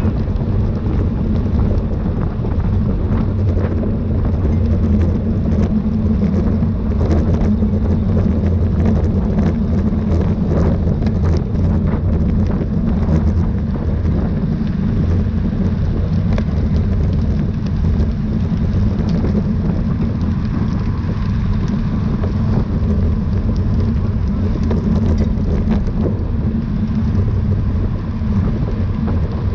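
Wind rushing over the microphone with road and tyre noise from a bicycle ridden at race speed: a steady low rumble with faint scattered ticks.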